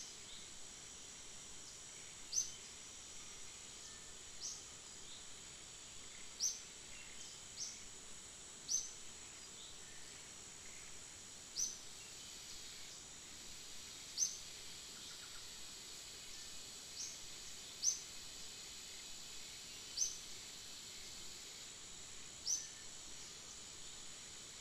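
Tropical forest ambience: a steady high insect hum, with a short, high, slightly falling chirp repeated every two to three seconds.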